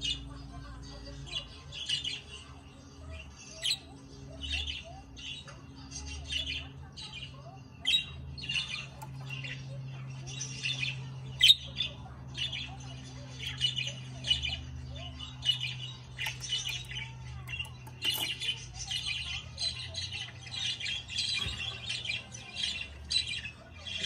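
A budgerigar chattering in short squawky chirps about once a second, running into a denser, near-continuous warble in the last few seconds, over a steady low hum.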